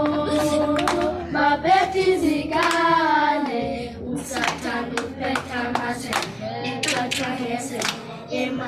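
Group of children singing together, then clapping in rhythm; from about four seconds in the claps come to the fore, about three a second, with the voices fainter beneath them.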